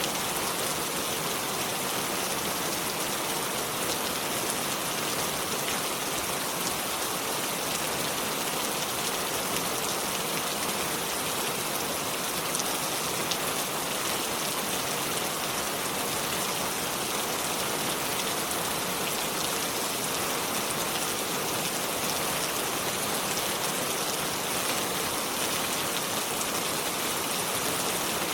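Steady rain falling, an even hiss of many small drops with no thunder or other events.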